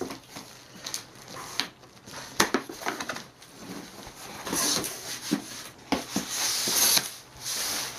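A cardboard shipping box being handled and opened: scattered knocks and clicks from the flaps and box, with two bursts of rustling from the packaging around five and seven seconds in.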